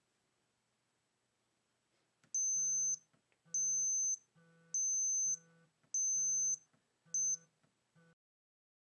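Incoming-call alert: a high buzzing beep that repeats about once every 1.2 seconds, five times, the last one cut short.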